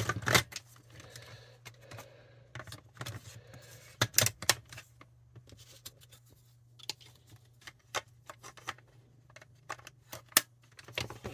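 Scattered clicks and clatter of hard plastic radio parts being handled and fitted, as the battery bay that holds the batteries goes back into a Sony ICF-2001 receiver. The loudest knocks come near the start, about four seconds in and near the end, over a low steady hum.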